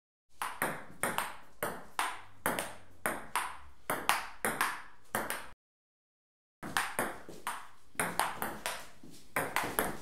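A table tennis rally: a celluloid ping-pong ball clicking back and forth off paddles and table, about two to three hits a second, each with a short ring. The rally breaks off for about a second near the middle, then picks up again.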